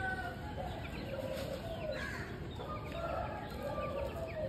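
Chickens in rooftop coops clucking and calling several times, with quick high chirps scattered between the calls, over a steady low rumble.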